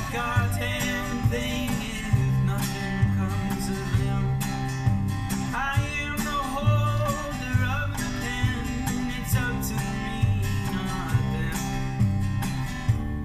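Background country-style music with guitar and a steady beat.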